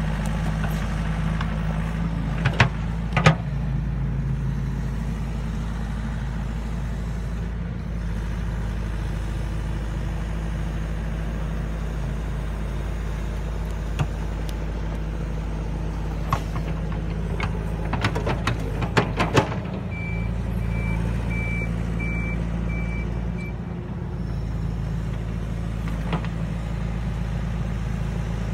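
Yanmar ViO80 excavator's diesel engine running steadily while it grades soil with a wide levelling bucket. Occasional sharp knocks come from the bucket and boom, with a cluster of them about 18 seconds in. A short run of faint high beeps follows about 20 seconds in.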